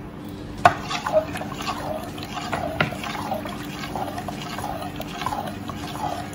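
Metal spoon stirring pumpkin punch in a stainless steel bowl: the liquid sloshes and the spoon clinks against the bowl's side again and again, the sharpest clink coming near the start.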